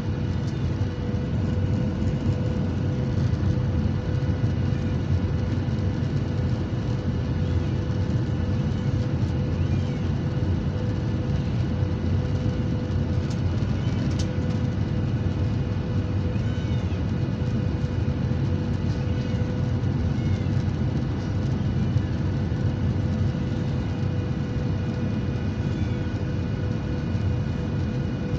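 Steady cabin noise of a jet airliner descending on approach, heard inside the cabin beside the wing: a low rush of engine and airflow noise with a constant hum.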